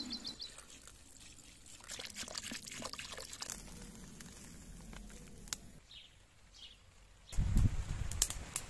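Liquid pouring and sloshing in an enamel kettle hung over a wood fire, with scattered sharp crackles. Near the end a louder low rumble sets in, with a few sharp cracks.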